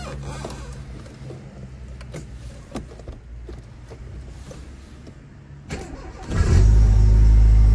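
Tofaş car's four-cylinder petrol engine cold-started: about six seconds in, the starter cranks briefly and the engine catches at once, then runs loud and steady.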